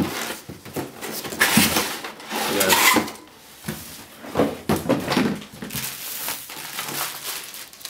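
Cardboard box and packaging being handled: irregular rustling and scraping of cardboard flaps, light knocks, and the crinkle of plastic-wrapped parts.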